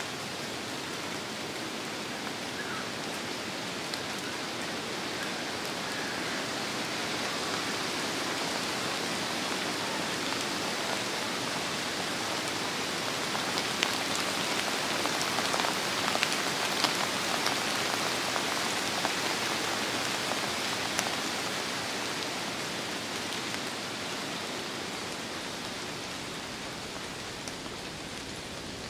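Steady rain falling in a forest, with single heavier drops heard as sharp ticks; it grows a little louder in the middle and eases toward the end.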